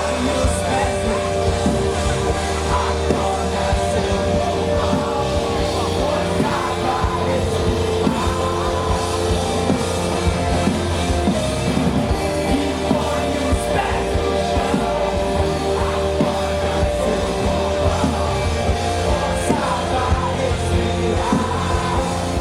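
Rock music with singing: a band playing at a steady, loud level with dense full-range instrumentation.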